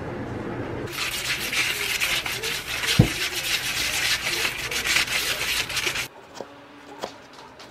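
Rubber-gloved hands scrubbing lemons with coarse salt in a plastic bowl: a gritty, scratchy rubbing, with one knock about three seconds in. The scrubbing starts about a second in and stops about six seconds in, followed by a few light clicks.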